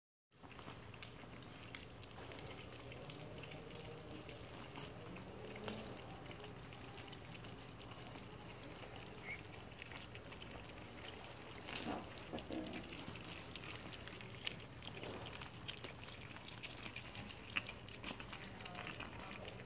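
A litter of Boston Terrier puppies lapping and smacking at a bowl of wet puppy mash: a continuous patter of small wet clicks and slurps.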